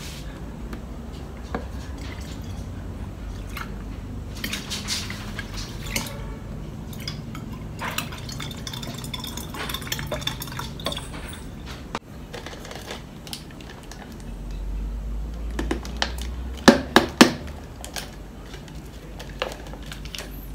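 Milk tea with tapioca pearls being poured from a cup and a glass into a plastic gallon jug: liquid splashing and filling, with light clinks and taps of the containers. A few sharp knocks come about three quarters of the way through.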